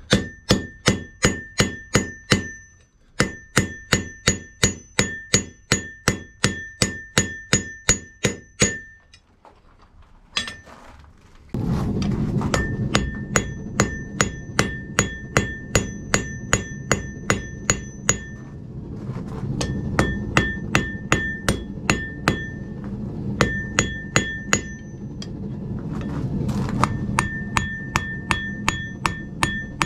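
Hand hammer striking a hot steel bar on an Alec Steele forged-steel anvil, in runs of about four blows a second, each blow leaving a short high ring from the anvil. About eleven seconds in, a steady low rushing noise starts suddenly and carries on under the continuing blows.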